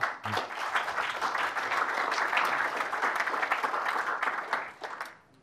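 Audience applauding: many hands clapping together in a dense patter that holds steady, then fades out near the end.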